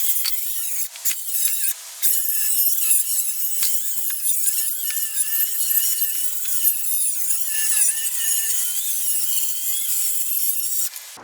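Power saw cutting through a wood deck board, with a steady high-pitched noise whose pitch wavers under load. It breaks off twice briefly about a second in, then runs on until it stops abruptly at the end.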